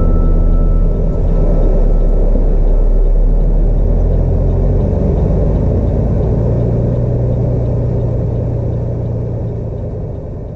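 Semi truck running down the road: a steady, loud, low diesel rumble with road noise, dying away toward the end.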